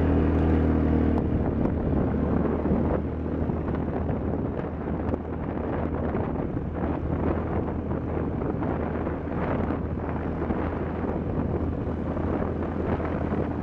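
ATV engine running as the machine rolls along a gravel dirt road, its engine note strongest in the first couple of seconds and then easing, with wind buffeting the microphone throughout.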